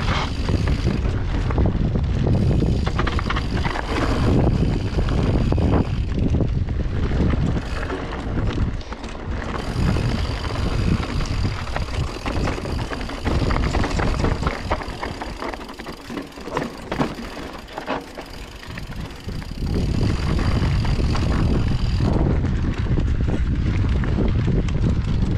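Orbea Oiz full-suspension mountain bike riding down a rocky dirt singletrack: tyres rolling over dirt and stones with the rattle and knocks of the bike, under a heavy rumble of wind on the microphone. The wind rumble eases for a few seconds past the middle, leaving the clatter of the bike clearer, then returns.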